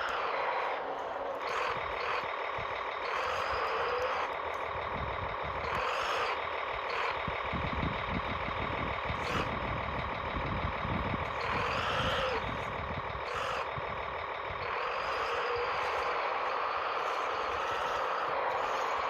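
Drive motors and gears of a Kyosho Blizzard 2.0 radio-controlled tracked snow vehicle whining. The pitch rises and falls several times as it speeds up and slows down, with a rough rattle from the tracks for a few seconds around the middle.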